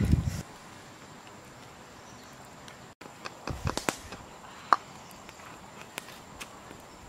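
Light knocks and rustles from a pestle in a mortar and woven baskets being handled on leafy ground, with one sharp knock and a brief ring a little past halfway.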